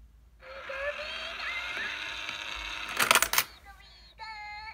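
Pikachu Itazura coin bank playing its electronic Pikachu voice and sound effects for a couple of seconds. About three seconds in comes a loud, brief clatter as the lid flips open and the coin is snatched off the plate. A short high-pitched Pikachu cry follows near the end.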